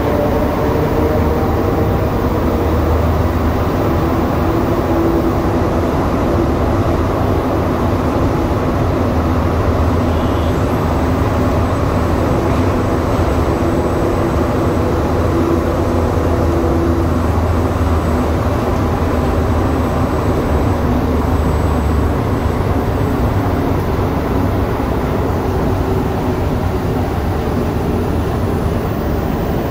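Rubber-tyred Montreal Metro Azur (MPM-10) train heard from inside the car, running through the tunnel with a steady rolling rumble and motor hum. About three-quarters of the way through, the deep rumble drops away as the train slows into the station.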